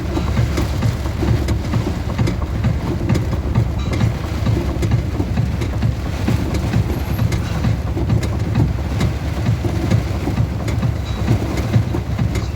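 Loud, continuous low rumble with many quick, irregular thumps, starting abruptly at a cut.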